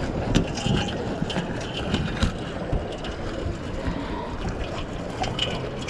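A knife slitting open a sockeye salmon's belly, with the fish shifting on a metal cleaning table: scattered small clicks, scrapes and knocks over a steady rushing background of wind and water.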